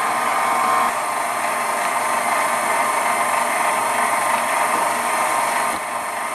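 KitchenAid stand mixer's electric motor running steadily, driving a pasta cutter attachment as a sheet of egg pasta is fed through and cut into fettuccine.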